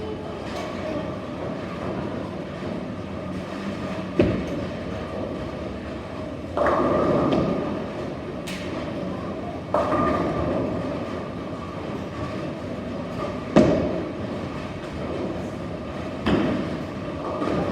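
Bowling alley sound: bowling balls rolling down the lanes with a steady rumble, and about five sudden crashes of pins being struck, each dying away over a second or so.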